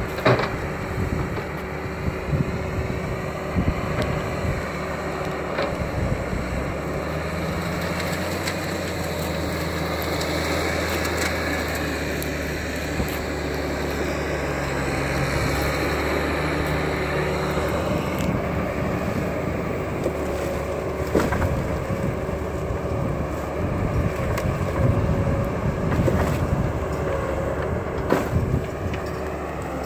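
Timberpro 840B forwarder's engine running steadily, its pitch rising and holding higher for several seconds mid-way, with scattered knocks and clunks throughout.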